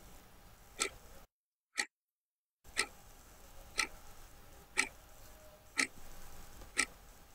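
A clock ticking, one sharp tick each second.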